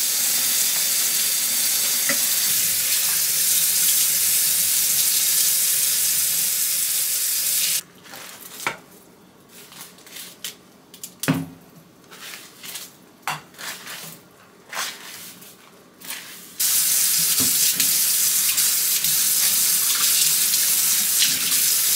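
Kitchen sink faucet running steadily as a wig is shampooed under it. About eight seconds in the water stops, and for several seconds there are only scattered short sounds of the soapy wig being handled, then the tap runs again near the end.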